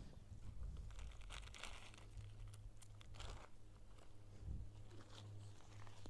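Soft crinkling and rustling with scattered light clicks, loudest about a second and a half in and again about three seconds in, over a low steady hum.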